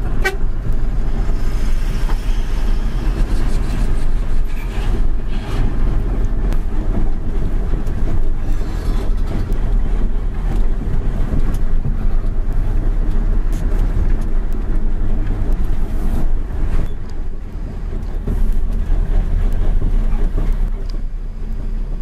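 Heavy diesel truck engine running with a steady deep rumble.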